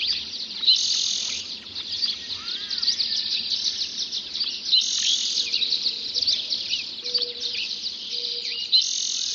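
Dawn chorus of many songbirds singing at once: overlapping chirps, whistled phrases and buzzy trills, with the birds waking as the first light reaches the canyon.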